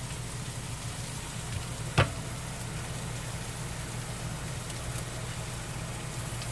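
Onions, peppers and tomatoes frying in a pan with a steady low sizzle. One sharp knock about two seconds in.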